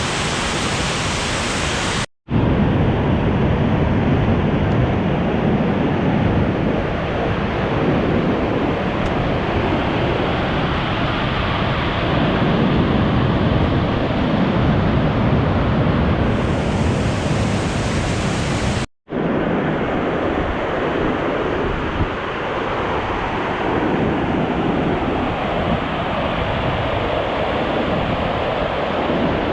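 Waterfall in spring snowmelt runoff rushing loudly and steadily. The sound breaks off for an instant twice, about two seconds in and again about two-thirds of the way through.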